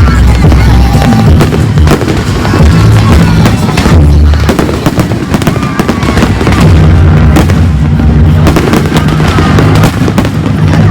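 Fireworks display: a dense run of bangs and crackles from bursting aerial shells, very loud, over music playing.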